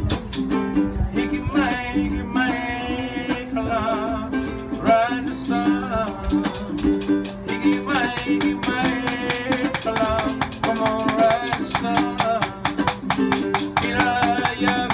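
Instrumental break of an acoustic song: plucked guitar under a melodic lead line, over a steady rhythm of quick light percussive taps.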